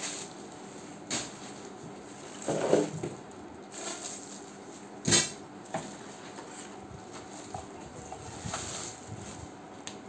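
Clear plastic packaging rustling and crinkling as hard plastic vacuum cleaner parts are handled in a cardboard box, with a few light knocks of the parts; the loudest crinkle is about two and a half seconds in and a sharp knock comes about five seconds in.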